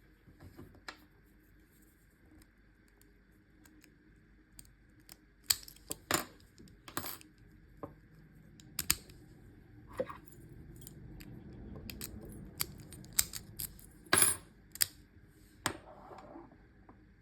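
ABUS 64TI/30 titanium padlock being picked with a short hook and tension wrench: scattered sharp metallic clicks and ticks of the tools against the lock and pins, with about a dozen louder clicks between a third of the way in and near the end.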